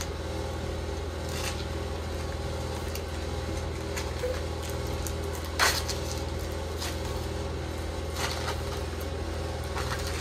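Foil wrapper of a cream cheese block crinkling a few times as it is peeled open, loudest a little past halfway, over a steady low hum.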